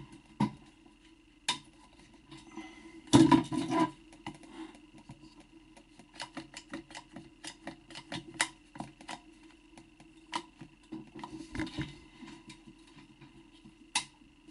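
One-handed trigger bar clamps being handled and squeezed onto a wooden mould: a loud clatter about three seconds in, then runs of quick sharp clicks, over a faint steady hum.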